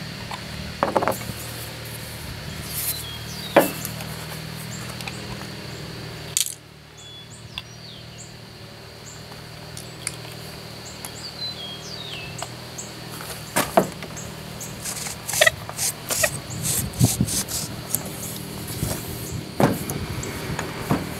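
Scattered metallic clicks and taps of small parts and hand tools being handled while a riding-mower starter motor is put back together, with a quicker run of clicks near the end.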